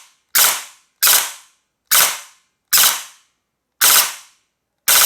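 Airsoft electric gun driven by a Novatech Xpert GP-350 brushless motor firing single shots in a slow, even series, six shots about a second apart, each with a short ring. The motor's controller is spacing the full-auto shots at its slowest setting of one second.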